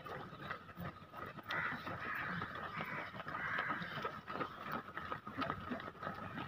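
Footfalls of a pack of marathon runners passing on an asphalt road, many quick irregular steps, over a haze of distant voices and shouts with a steady high tone in the background.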